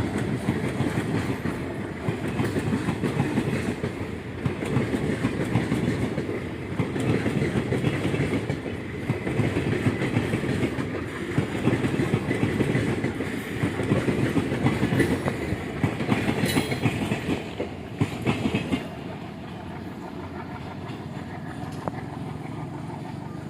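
A passenger train rolling past, its wheels clattering rhythmically over rail joints and points. A brief high wheel squeal comes near the end. About 19 seconds in, the clatter falls away to a quieter, steady rumble as the train clears.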